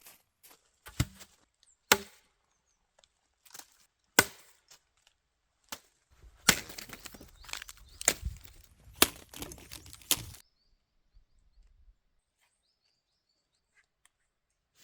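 Wood being chopped with an axe: sharp, separate blows a couple of seconds apart, then a quicker run of four or five strikes with splintering crackle between them, from about six to ten seconds in.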